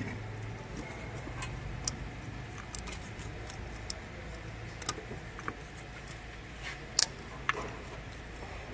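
Scattered sharp metallic clicks and clinks of hand tools and engine parts being handled, the loudest about seven seconds in, over a low steady hum.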